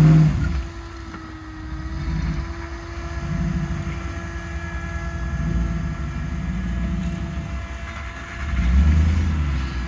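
Lifted Toyota 4x4's engine revving in repeated surges as it claws up a steep, rutted sand bank, with a loud surge near the end. A thin steady whine runs underneath.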